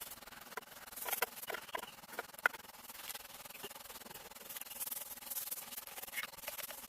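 Rough scraping and rustling, with a run of sharp clicks and cracks in the first half.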